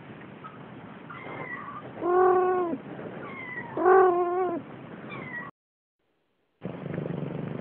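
A kitten meowing twice, two loud drawn-out meows about two seconds apart, with a few faint high squeaks around them. The sound then cuts out abruptly, and after a second of silence a steady low background noise comes back.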